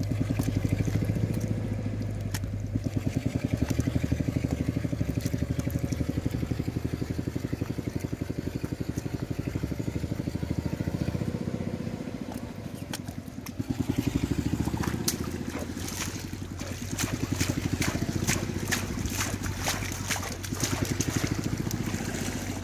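A small engine chugging steadily with a fast, even pulse. About two-thirds of the way in, water splashing and sloshing joins it as a bamboo basket of fish is swished in shallow muddy water.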